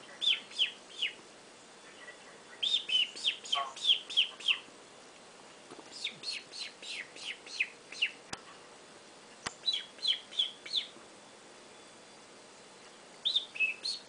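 Bird-like chirping whistles: bursts of several quick, high notes that each fall in pitch, coming every couple of seconds with short pauses between.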